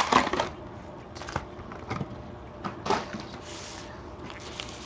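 Wrapped packs of baseball cards being handled: a few short rustles and taps as packs are pulled from the cardboard box and set down in stacks on the table.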